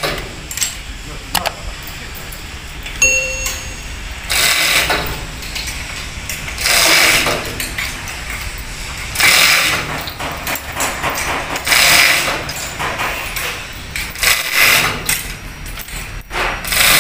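Truck-workshop noise while an engine hangs from a chain hoist: a ringing metallic ding about three seconds in, then several short rushing bursts of noise every two to three seconds.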